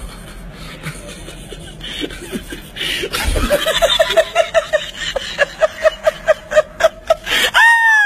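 A big splash into a swimming pool about three seconds in, followed by a long run of hard, rhythmic laughter, short 'ha' pulses about three a second, breaking into a higher cackle near the end.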